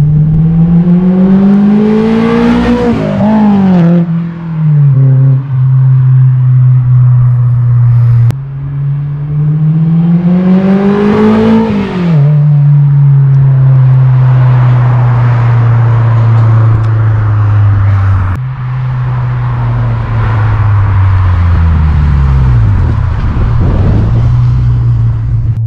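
Honda S2000 with a Skunk2 MegaPower cat-back exhaust accelerating hard past, loud. The exhaust note climbs in pitch as it revs up, then drops sharply, twice. Near the end a pass falls away in pitch. A steady low engine drone sits underneath.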